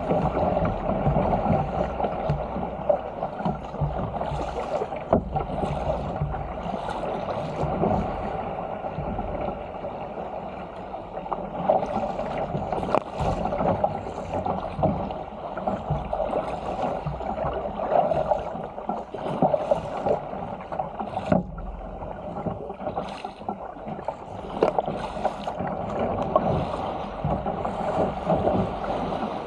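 Sea water rushing and splashing along the hull of a Stealth 475 fishing ski paddled fast downwind, with irregular sharper splashes from the paddle blades and breaking chop.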